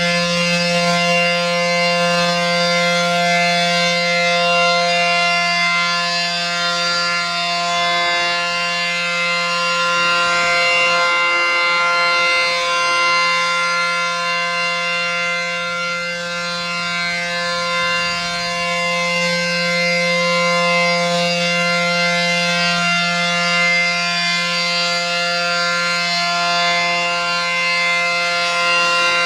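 ACA P-10 electromechanical warning siren sounding a steady Alert signal: one held, unwavering pitch with rich overtones. This is the steady tone used for a tornado warning.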